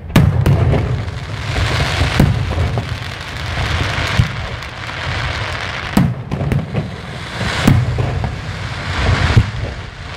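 Aerial firework shells bursting: a string of deep booms a second or two apart, the loudest right at the start, over a steady crackling hiss from the falling stars.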